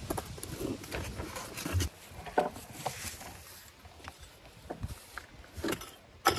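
A hand tool digging and scraping in stony soil around a boulder, with scattered knocks and thuds of dirt and stones.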